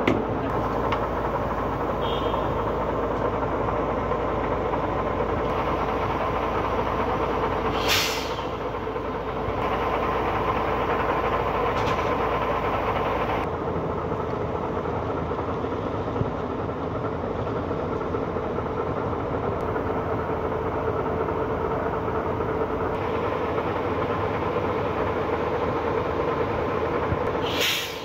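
Heavy machinery engine running steadily, a constant drone with a held hum. There is a brief hiss about eight seconds in and another near the end.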